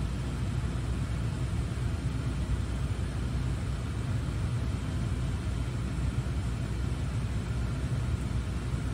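Steady low rumble of cabin noise inside a Tesla electric car, with no engine note.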